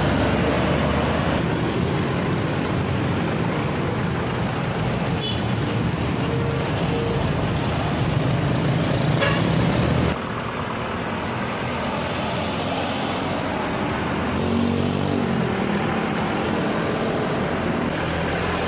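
Street traffic: light diesel trucks driving past with motorbikes, the engines running steadily. The sound drops suddenly about halfway through, then rises again a few seconds later.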